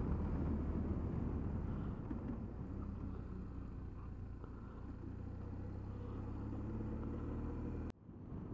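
Motorcycle engine running steadily under way, with road and wind noise, heard from a camera on the bike; it eases a little in the middle and picks up again, then cuts off abruptly near the end.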